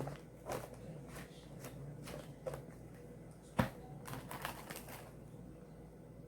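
Scattered sharp clicks and taps from hands handling slime-making materials and containers. The loudest click comes about three and a half seconds in, followed by a quick run of clicks, then it goes quiet near the end.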